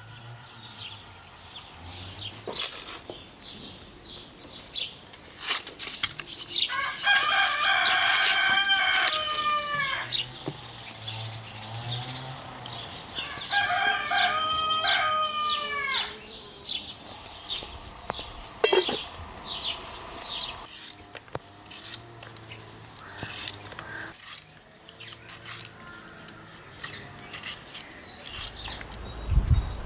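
A rooster crowing twice, each crow about three seconds long and dropping in pitch at the end, with scattered sharp clicks and knocks around it.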